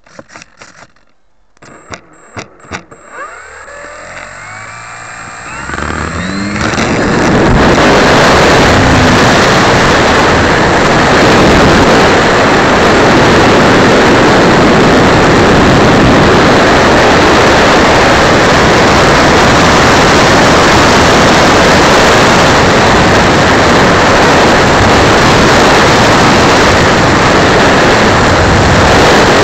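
Electric Dynam Pitts RC plane heard through its own onboard camera's microphone. After a few clicks, the motor's whine rises in pitch over several seconds as it throttles up. About seven seconds in this gives way to a loud, steady rush of propeller and wind noise.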